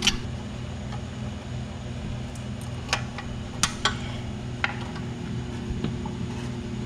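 A handful of sharp metallic clicks and clinks from hand tools and parts while the car's rear brake and suspension are taken apart, over a steady low hum.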